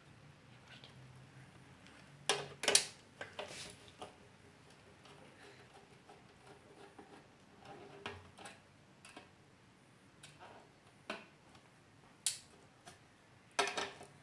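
Scattered clicks and knocks from computer parts being handled and unscrewed while a cooler fan is taken off. The loudest is a cluster of sharp clacks about two and a half seconds in, with another near the end.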